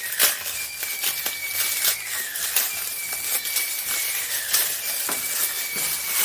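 Packaging wrap crinkling and rustling as it is pulled off a boxed toy transformation belt, in a dense run of irregular crackles.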